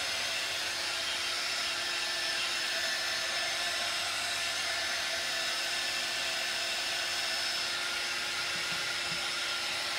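Handheld craft heat gun blowing steadily with a faint constant hum, used to dry the freshly painted tray surface.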